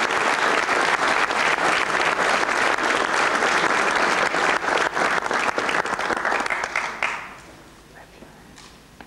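Audience applauding: dense, steady clapping that dies away about seven seconds in.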